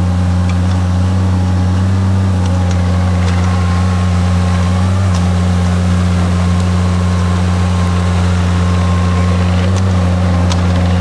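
Shantui mini excavator's diesel engine running at a steady speed, a loud even drone, with a few faint ticks.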